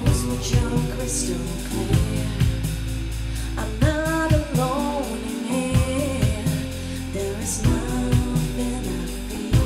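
Live synth-pop band playing: drum kit keeping a steady beat under electric bass, electric guitar and synthesizer, with a woman singing a line about four seconds in.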